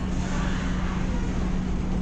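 Small passenger ferry's engine running steadily: a constant low hum over a deep rumble.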